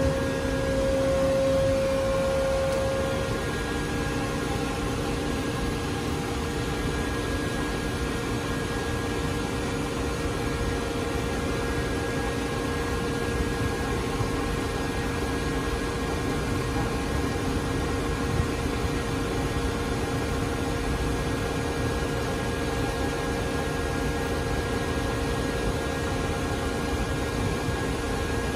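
Powered-up 1982 Bullard 46" Dyn-Au-Tape vertical turret lathe running: a steady machine hum with several constant tones over a noise bed. A louder whine stands out for the first three seconds or so.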